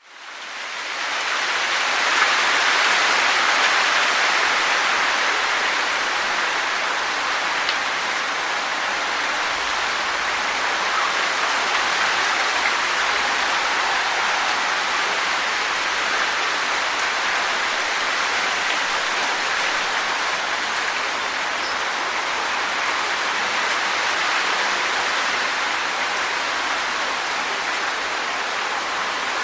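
Wind blowing through trees, leaves rustling in a steady hiss. It fades in over the first second and swells a little a few seconds in.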